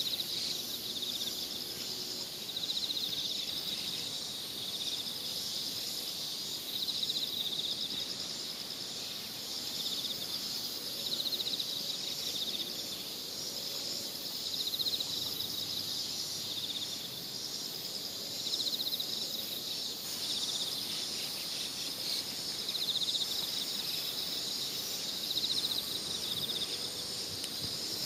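A steady high-pitched chorus of insects chirring, with a pulsing call swelling every second or two.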